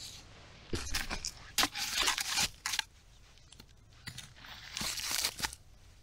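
Dry birch bark and small dry sticks being torn and snapped by hand for kindling, in two bouts of tearing and crunching with a few sharp snaps in the first.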